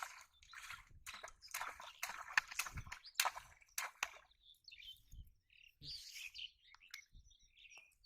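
Birds chirping, with a run of sharp clicks and knocks through the first half.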